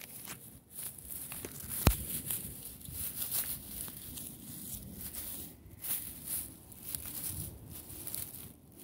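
Dry grass rustling and crackling as a hand pushes through it at ground level, in uneven bursts, with one sharp click about two seconds in.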